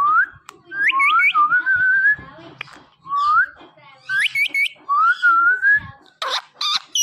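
Pet ringneck parrot whistling the same phrase twice: a rising whistle, three quick upward chirps, then a wavering held note. A few short, sharp sounds follow near the end.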